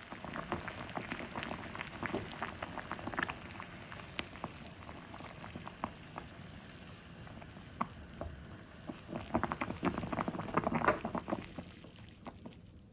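Sugar syrup bubbling at a steady boil around peach halves in a small saucepan, a dense crackle of popping bubbles. It is busiest in the first few seconds and again around ten seconds in, then thins out near the end.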